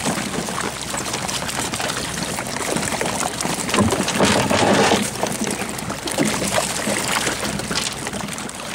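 Water splashing and churning at the side of a fishing boat during a purse-seine haul, over a steady low engine hum, with many small clicks and slaps throughout and a louder stretch of splashing about four seconds in.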